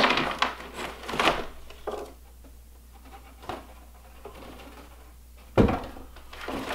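Cardboard shipping box and the packing inside rustling and knocking as it is handled and its contents tipped out onto a table. It goes quiet in the middle, then a sudden knock and a short vocal sound come about five and a half seconds in.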